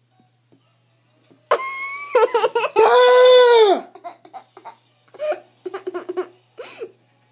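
A child's voice in a long, drawn-out high cry that settles on a held note and drops away at the end, followed by a few short bursts of giggling.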